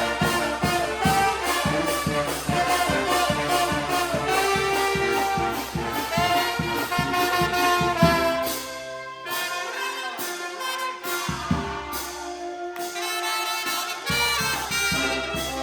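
Charanga brass band, trumpets and trombones over a steady drum beat, playing an EDM tune. About eight seconds in the drums and low parts drop out, leaving the higher brass alone, and the beat comes back near the end.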